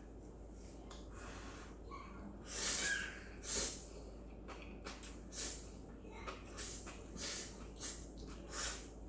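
A person slurping noodles in a string of short, airy slurps. The two loudest come about two and a half and three and a half seconds in.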